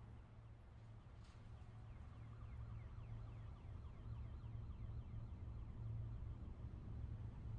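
A low steady hum with faint, repeated falling whistle-like tones above it, slowly swelling in level: an ambient sound-design drone.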